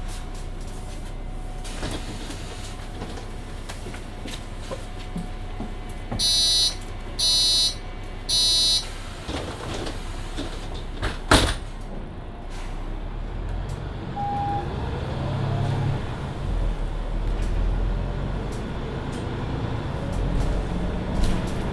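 Interior of a Mercedes-Benz Citaro C2 hybrid city bus: three loud warning beeps about a second apart as the doors close, a sharp clack a few seconds later, then the bus pulls away with a rising whine and the engine working harder under load.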